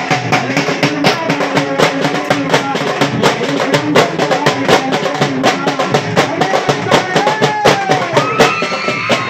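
A man sings a devotional song into a microphone over fast, steady drumming played with sticks. Near the end the voice holds long notes that slide up and down.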